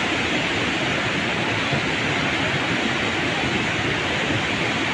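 Birahi Ganga river in flood after heavy rain, its fast, turbulent water rushing steadily and loudly.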